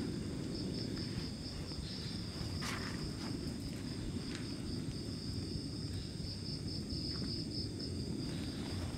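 Night insects trilling steadily in a high, finely pulsing band, over a low rumble of background noise. A faint click sounds about three seconds in.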